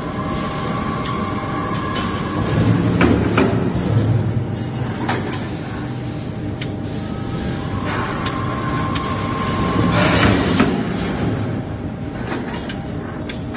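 A 250-ton hot forging press running through its working cycle: a steady machine hum and whine, swelling twice, about seven seconds apart, into louder strokes with sharp metallic knocks.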